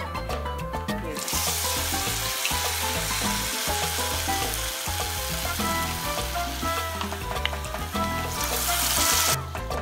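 Stuffed bitter gourd coated in besan batter sizzling as it fries in hot mustard oil in a kadhai. The sizzle starts about a second in and cuts off shortly before the end, with background music throughout.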